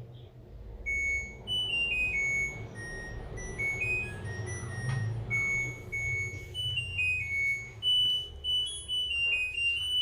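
LG front-load washing machine playing its electronic end-of-cycle melody, a tune of stepped beeps, signalling that the rinse and spin cycle is finished. A steady low hum runs underneath.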